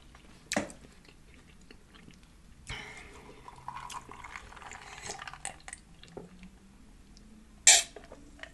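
Close-miked mouth sounds of a person eating: soft chewing with small wet clicks, and a few sharp lip smacks, the loudest a little before the end.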